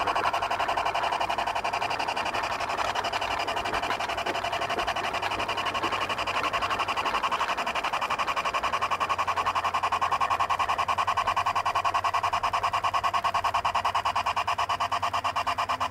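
Garden-scale model locomotive running along its track, with a steady, fast, even pulsing rhythm.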